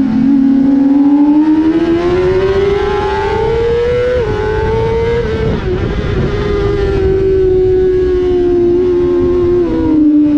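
Inline-four sport bike engine at high revs on track, heard from the rider's own bike with wind rushing over the microphone. The whine climbs for about four seconds, steps down at an upshift, climbs again, then holds high with a slight fall along the straight and drops near the end as the throttle closes for the next corner.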